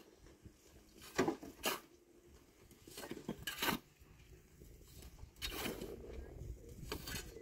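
A series of irregular knocks and scrapes of hard objects, about six over several seconds, with quiet low background between them.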